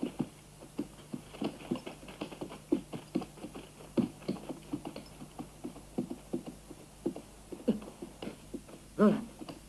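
Horse hooves knocking and thudding irregularly on forest ground, two or three blows a second, as a horse moves about. About nine seconds in comes a short cry falling in pitch.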